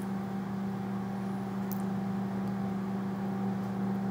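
Forklift engine running steadily, a constant low hum, with a couple of faint ticks about halfway through.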